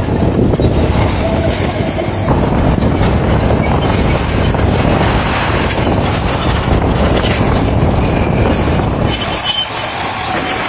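Heavy earth-moving machinery working loud and steady: a diesel engine's rumble under high metallic squealing, of the kind crawler tracks on a bulldozer make.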